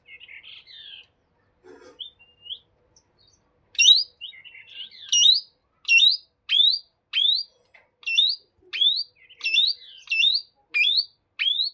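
Plum-headed parakeet calling. A little soft chatter comes first, then from about four seconds in a run of loud, short calls, each sweeping sharply upward, repeated roughly twice a second.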